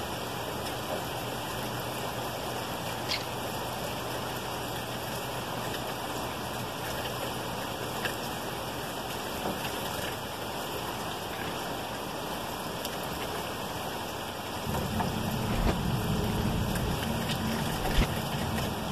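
Steady rain falling, an even hiss with no letting up; about 15 seconds in, a low rumble comes in beneath it.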